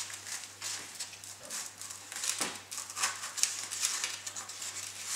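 Foam board rubbing and scraping as a foam nose section is pushed into a tight slot in the model plane's fuselage: a string of small, uneven clicks and scrapes.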